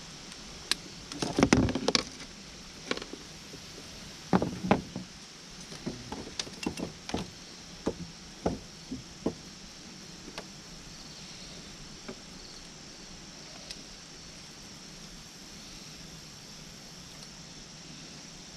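A run of irregular knocks and clattering thuds during the first half, the loudest two close together near the start, then only a steady background hiss.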